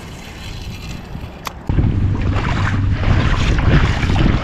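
Wind buffeting the camera's microphone as a heavy low rumble, jumping suddenly louder a little under two seconds in, over a noisy wash of shallow water.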